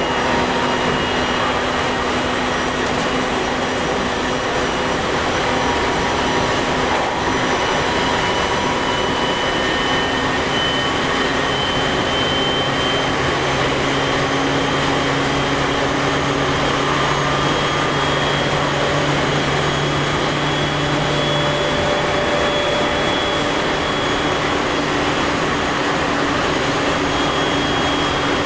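JR East E721-500 series electric train running between stations: a steady rumble of wheels on rail, with faint thin whines from the Mitsubishi IGBT-VVVF traction equipment that drift slowly in pitch.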